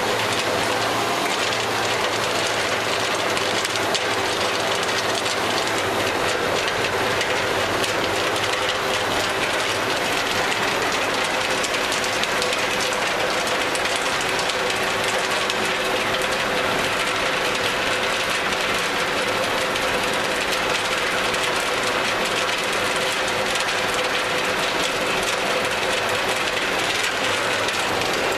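Gallis 310B roof bolter drilling up into a steel beam with its twisted drill steel: a steady, dense clatter of the turning steel over the machine's running motor, unbroken throughout.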